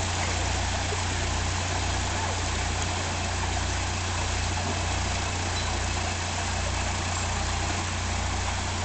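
Narrowboat diesel engine running at tick-over, a low throb pulsing a little more than once a second, over a steady rushing hiss of water churned by the propeller in the lock.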